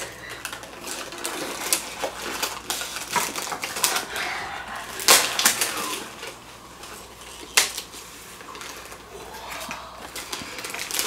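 Cardboard takeout chicken box and its paper lining being opened slowly, crinkling and rustling in many small crackles, with two sharper, louder rustles about five and seven and a half seconds in.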